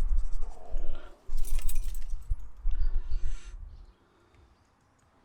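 Small metal parts clinking and rattling as they are handled, over low thumps and rumble. The sounds stop about four seconds in.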